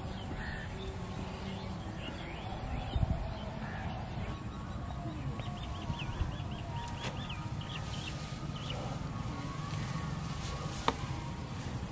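Open-air rural background with a low rumble and birds calling, including a quick run of short rising chirps about seven seconds in. A single sharp click comes near the end.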